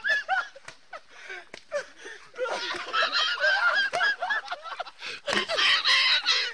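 People laughing hard in short, high, honking cackles, several a second. The laughter gets louder and denser about five seconds in.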